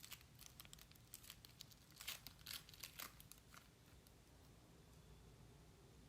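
Faint crinkling and tearing of a Pokémon booster pack wrapper being opened, with a cluster of sharper crackles about two to three and a half seconds in, then quieter.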